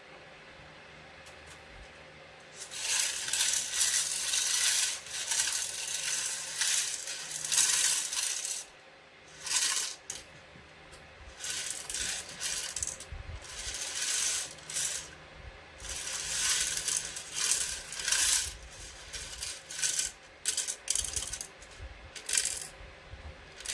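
Loose Lego Technic plastic pieces clattering and rattling in repeated bursts as they are handled and moved about.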